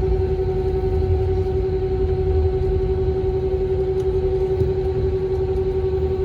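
Airbus A321 cabin noise: the jet engines' steady hum, with one constant tone over a low rumble.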